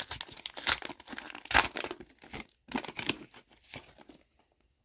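A trading card pack wrapper being torn open and crinkled, a run of crackly rips and rustles that dies away near the end.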